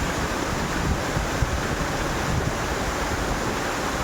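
Waterfall rushing steadily, with wind buffeting the microphone.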